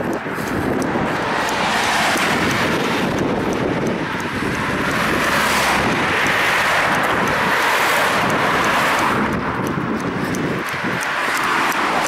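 Wind rushing over the microphone mixed with passing road traffic, a loud steady noise.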